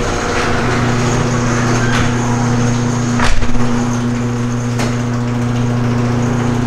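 Electric garage door opener running, its motor humming steadily as it raises a sectional garage door, with three sharp clunks from the door as it travels up.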